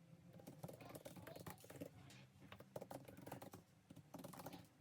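Faint, irregular light clicks and taps, several a second, like keys being typed on.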